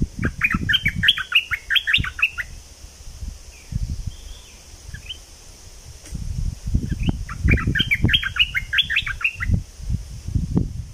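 Stripe-throated bulbul song: two bursts of quick, bubbly chattering notes, one at the start and one about seven seconds in, with irregular low rumbling noise underneath.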